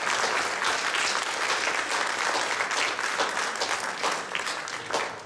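Audience applauding, many hands clapping together; the clapping thins out and dies away near the end.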